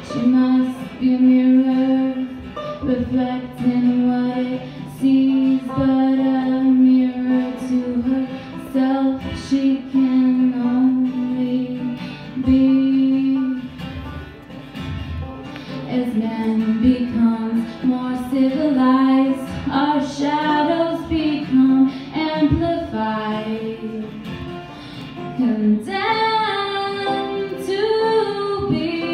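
Live folk song: a woman singing long, held notes over acoustic guitar and banjo.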